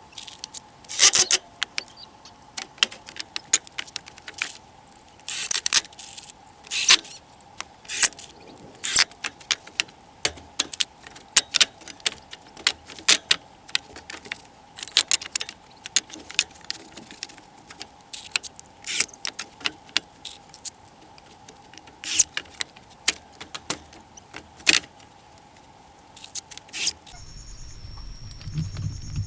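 Irregular sharp clinks and knocks, some loud, over a faint steady hum. Near the end the hum stops and a low rumble comes in.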